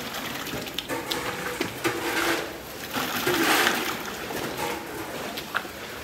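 A plastic bucket scooping feed that has soaked in water out of a large concrete tub and pouring it into another bucket. The wet slurry sloshes and gushes, loudest a little past halfway.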